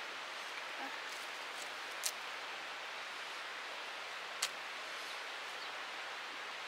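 Steady outdoor background hiss, broken by two brief sharp ticks about two and four and a half seconds in.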